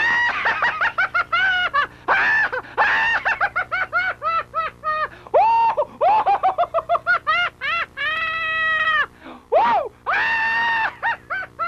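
A high-pitched voice shrieking and warbling without words: a run of quick rising-and-falling yelps, about five a second, then two long held high notes near the end.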